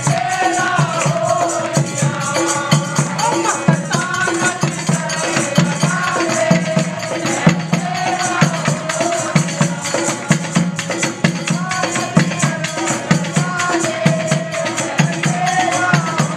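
Devotional singing accompanied by a dholak drum beating a steady rhythm and jingling hand percussion.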